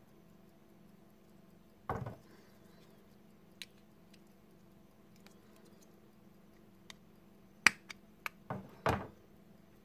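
Pocket watch being pried open with a knife blade under its caseback: a scrape of handling about two seconds in, scattered light metal clicks, then near the end a sharp click, the loudest sound, as the back snaps off, followed by a short scrape.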